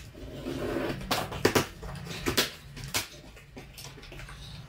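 A blade slitting the packing tape on a small cardboard box, then the flaps being pulled open: a short scraping rasp followed by several sharp cardboard snaps and knocks in the next two seconds.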